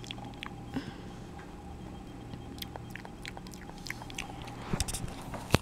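Small plastic dolls and toys being handled on a carpet: scattered light clicks and taps, bunching up near the end with one sharper click.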